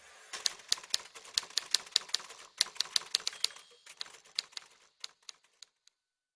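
Typewriter keys striking in an irregular run of sharp clicks, several a second, thinning out and stopping near the end.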